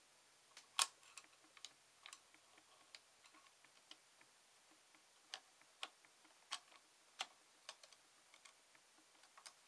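Faint, irregular clicks and taps of a long screwdriver working at the pistol-grip retaining screw deep inside a Magpul MIAD grip, trying to get the screw started. The loudest click comes about a second in; the rest are scattered and spaced unevenly.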